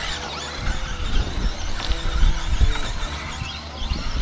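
Electric RC short-course trucks (Traxxas Slash 2WD) racing, their brushless motors giving overlapping high whines that rise and fall with the throttle. Low thumps come about two seconds in.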